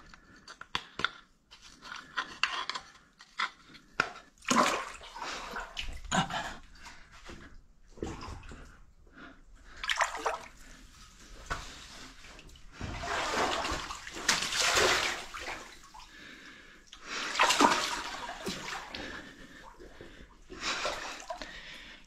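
Boots wading through shallow standing water on a flooded mine floor: irregular sloshing splashes with each step, some louder surges where the water is kicked up.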